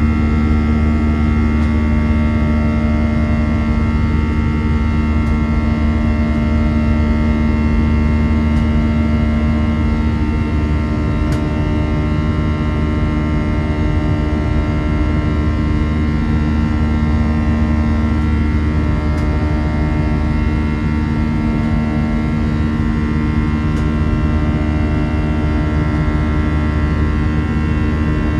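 CFM56 turbofan on an Airbus A319 at climb power, heard in the cabin beside the engine: a steady loud drone carrying the fan's buzzsaw, many steady tones stacked over a deep rumble.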